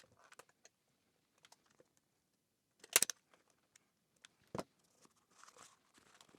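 Staple gun firing twice, two sharp snaps about a second and a half apart, with small handling ticks and faint rustling of the plastic-rubber strip between. The gun is shooting two staples at a time.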